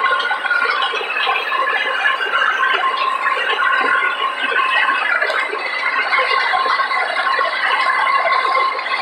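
Pull-type haybine mower-conditioner and its tractor running steadily while cutting standing oats: dense machine noise with a few steady high tones over it.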